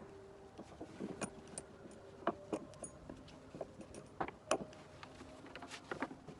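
Metal fittings of a horse bridle, its buckles and bit rings, clinking and jingling as the straps are handled, with a scatter of sharp clinks, the loudest about two and four and a half seconds in.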